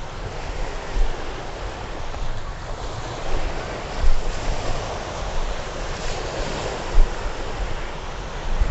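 Steady rush of wind and sea surf, with gusts of wind buffeting the microphone in irregular low thumps, the strongest about four seconds in, near seven seconds and at the very end.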